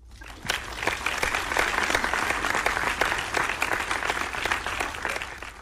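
A roomful of people applauding: dense, steady clapping that starts suddenly, holds for about five seconds and dies away near the end.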